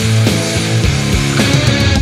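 Loud background rock music with a steady drum beat and heavy guitar and bass.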